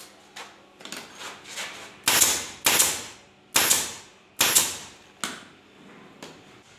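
Pneumatic upholstery staple gun firing staples through fabric into a wooden bed frame. It makes a run of sharp shots, each trailing off in a short hiss of air, with four loud ones in the middle and lighter clicks before and after.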